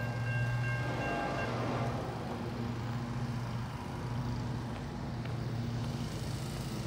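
An engine running with a steady low hum. A few faint higher tones fade out in the first second and a half.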